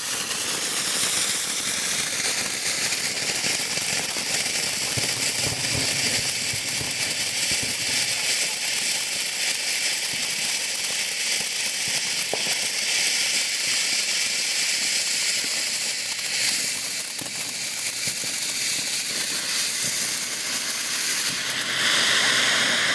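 Ground fountain firework spraying sparks with a steady loud hiss, which grows louder and brighter near the end.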